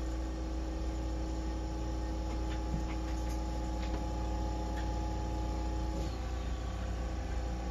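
Steady low electrical hum, with a fainter higher drone on top that cuts off about six seconds in.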